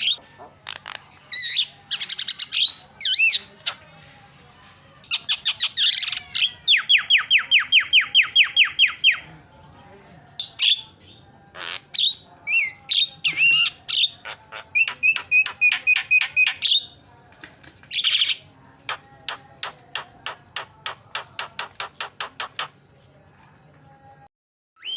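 Javan myna (jalak kebo) singing a varied, chattering song: squawks and whistled notes broken by long, fast runs of repeated notes.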